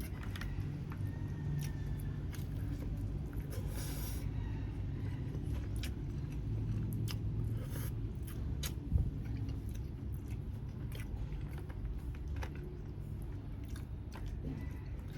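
Close-up eating of grilled chicken: steady chewing and biting with many small clicks and mouth sounds, and one louder knock near the middle.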